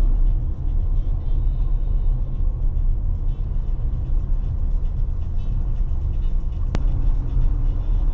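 Car road noise while driving: a steady low rumble with tyre and wind hiss, and a single sharp click about seven seconds in.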